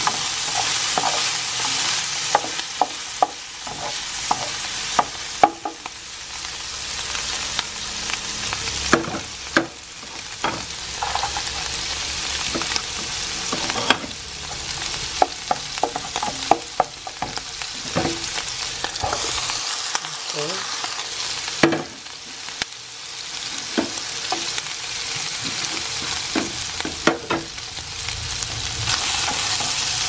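Diced pork frying in oil in a nonstick pan: a steady sizzle, with frequent knocks and scrapes of a wooden spatula stirring it. Chopped garlic and then onion go into the pan partway through.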